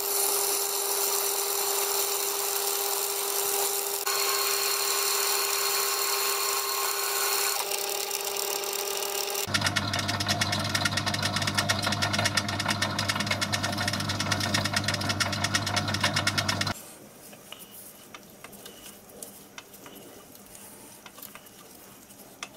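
Metal lathe running while turning down a stainless steel rod: a steady whine, changing about nine seconds in to a lower, fast-pulsing mechanical buzz, then stopping suddenly at about seventeen seconds. Quieter light clicks and scrapes follow as a thread is cut on the rod by hand with a die.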